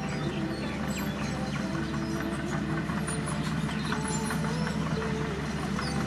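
Mitsubishi BD2J crawler dozer's diesel engine running steadily as it pushes soil, with a scatter of small clanks and clicks from the machinery.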